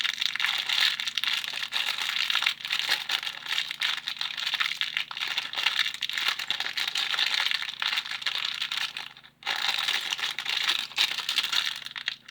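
Plastic packaging crinkling and rustling continuously as it is handled and worked open by hand, with a brief pause about nine seconds in.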